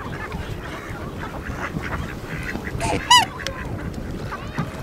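Black swans calling at close range: a scatter of soft calls, and one loud, short, high-pitched call about three seconds in.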